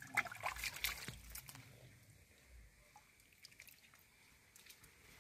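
Wet mud squelching and muddy water sloshing as a leg works through shallow mud, loudest in the first second and a half, then only faint wet ticks.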